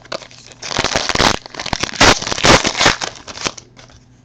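Crinkling and crackling of a trading-card pack's foil wrapper being handled and opened, a dense run of quick rustles from about half a second in until near the end.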